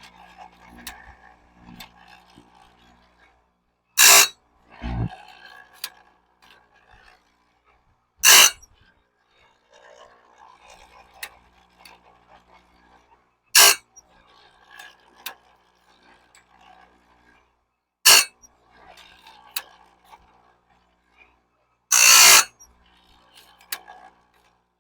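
Chainsaw-chain sharpener's grinding wheel biting bandsaw blade teeth one at a time: five short, loud grinding passes about four to five seconds apart, the last a little longer, with quieter handling sounds between them.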